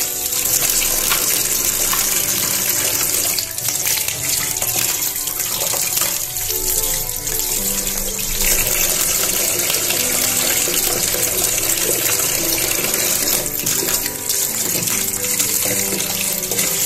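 Tap water running steadily into a stainless-steel sink while pieces of fish are rinsed by hand under the stream, with background music underneath.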